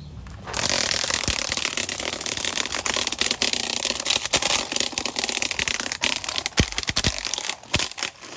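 Hart 40V cordless string trimmer starting up about half a second in and running at full speed, its spinning line crackling and ticking as it strikes grass and debris, easing off briefly near the end. The line has been let out too long.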